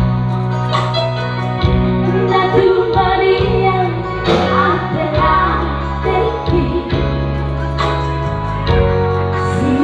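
A woman's voice singing over band backing, with held bass notes and a steady drum beat.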